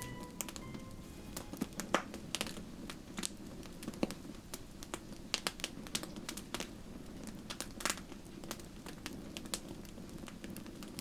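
Wood campfire crackling, with irregular sharp pops and snaps over a low steady rushing sound.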